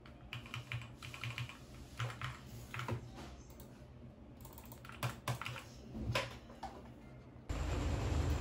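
Typing on a compact gaming keyboard: quick runs of keystroke clicks in several bursts with short pauses. Near the end a much louder, fuller sound cuts in abruptly.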